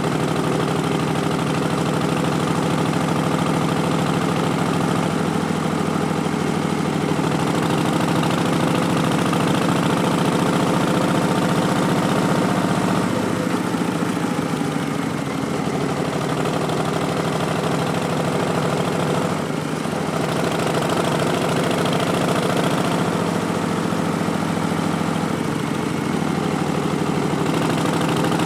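2019 Harley-Davidson Street Bob's Milwaukee-Eight 107 V-twin running, breathing through an Arlen Ness Big Sucker intake and Vance & Hines Twin Slash slip-on mufflers (stage 1 tune). The engine note is fairly steady, with brief dips about 15 and 20 seconds in.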